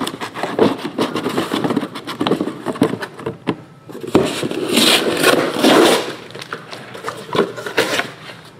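Cardboard shipping case and shrink-wrapped trading-card hobby boxes being handled and set down on a table: a run of knocks, scraping and rustling, loudest about five to six seconds in.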